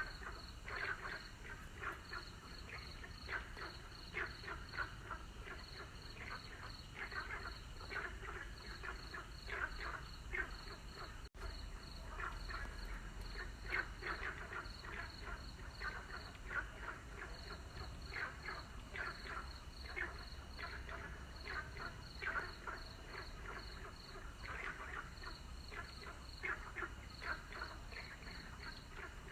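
A chorus of frogs calling, many short croaking calls overlapping and repeating without pause, over an evenly pulsed high chirping. The sound drops out for an instant about eleven seconds in.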